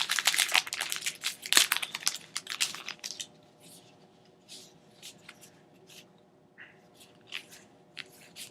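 Foil wrapper of a Magic: The Gathering booster pack being torn open and crinkled, loud and crackly for about three seconds. Then only faint rustles and light ticks as the cards are handled.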